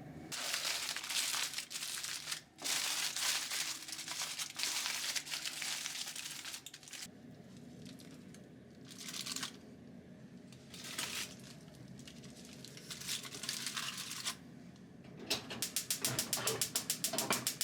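Rustling and crinkling of something being handled, in several separate spells, then a fast run of short, evenly spaced scratchy strokes near the end.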